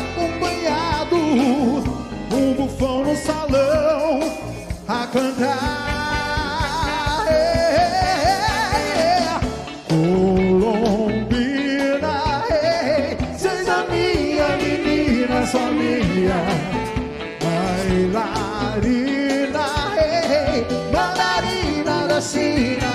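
Big band with vocalists performing live: voices singing with vibrato over a full band and a steady beat.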